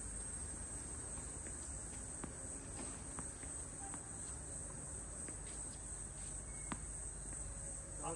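Steady high-pitched chorus of insects chirring, with a few faint sharp knocks now and then.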